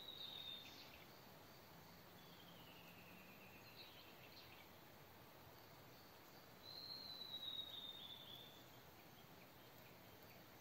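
Faint woodland ambience with a wild bird singing in the distance: three long whistled notes, the first and last high and slowly falling, the middle one lower, dipping then rising.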